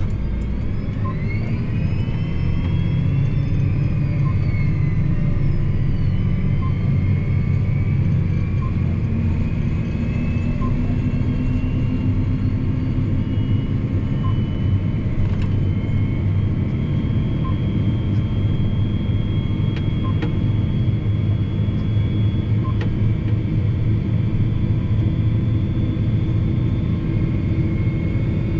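John Deere 8245R tractor's six-cylinder diesel and drivetrain heard from inside the cab while driving: a steady low drone with a high whine rising slowly in pitch as it gathers speed.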